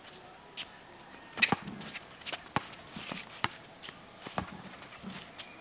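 A basketball dribbled on a concrete court: a series of sharp bounces at an uneven pace, about one every half-second to a second.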